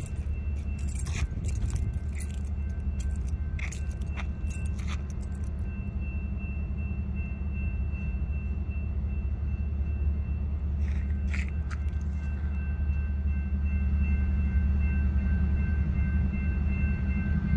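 Steady low rumble of street traffic, with jingling clicks like keys jangling over the first few seconds and again briefly about eleven seconds in. A faint steady high whine comes in about six seconds in.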